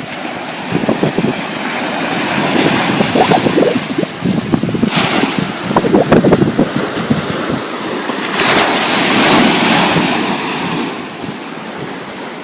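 Ocean waves breaking and washing, with a louder surge of surf about eight seconds in, and wind buffeting the microphone.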